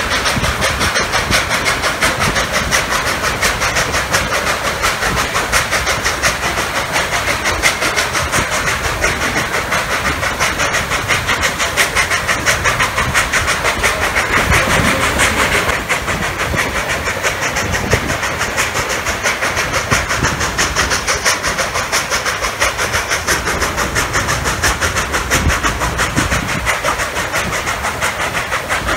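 Narrow-gauge train under way behind K-36 class 2-8-2 steam locomotive No. 481, heard from an open gondola car: a fast, steady clatter of wheels on the rails mixed with the locomotive working.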